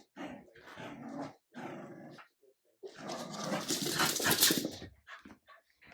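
Jack Russell terrier and French bulldog puppy growling as they play-fight: several short growls in the first two seconds, then a longer, louder scuffle of growling from about three to five seconds in.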